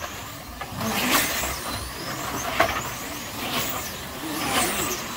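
Electric motors of slot-car trucks whining as they pass around the track, one swell about every second, each whine gliding up and down in pitch.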